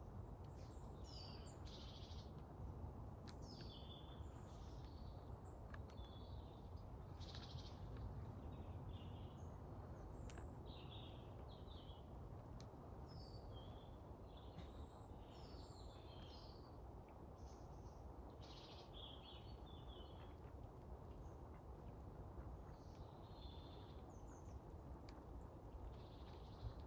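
Small birds chirping and calling faintly, many short high notes scattered throughout, over a low steady background rumble.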